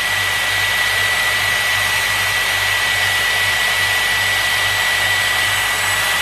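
Dyson Airwrap hair styler blowing steadily on its cool-shot setting: a rush of unheated air with a steady high whine from its motor, used to cool a wrapped curl.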